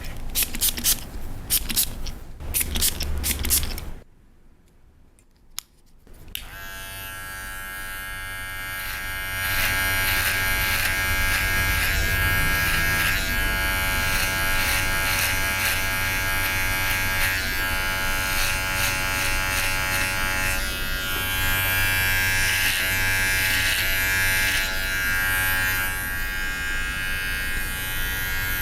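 Hair-cutting scissors snipping several times, then after a short pause electric hair clippers start buzzing steadily, growing louder over about three seconds before holding level.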